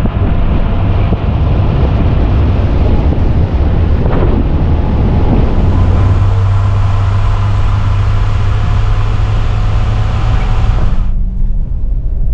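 Motor vehicle running, a steady low engine hum with road noise over it; the higher noise drops away suddenly near the end.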